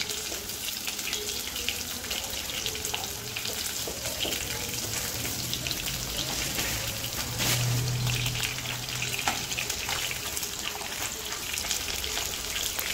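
Marinated chicken pieces frying in hot oil in a non-stick kadai: a steady crackling sizzle, with the odd tap of a metal spatula turning the pieces. A low hum joins in for a couple of seconds in the middle.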